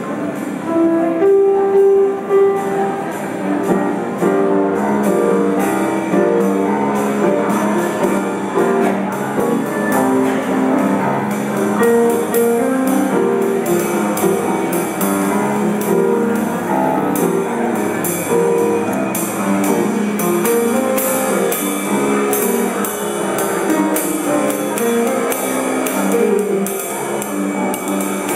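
Live music: a snare drum and cymbal struck with sticks in a busy rhythm, with a pitched instrument playing a run of short notes over it.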